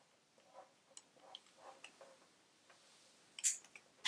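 Faint, irregular clicks and soft rustling as a corded curling iron is unwound from a lock of hair and put down, with a brief rustle about three and a half seconds in.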